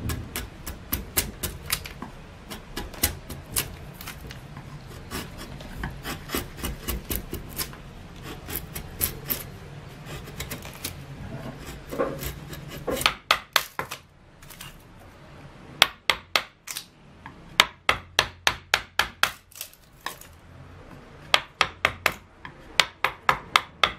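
Hand-carving cedar wood with a carving knife and gouge: the blade cuts and scrapes through the grain with many small clicks. From about halfway it changes to quick runs of sharp taps, several a second, with short pauses between runs.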